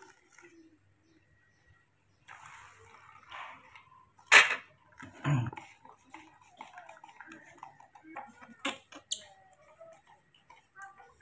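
Faint, short squeaks from a newborn baby monkey, with a sharp knock about four seconds in, a low thud just after it, and a few more clicks and bumps later.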